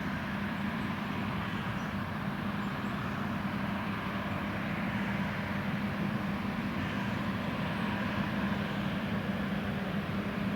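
John Deere X9 1100 combine harvester running steadily while cutting oilseed rape: a constant, even machine drone with a steady low hum and no change in pace.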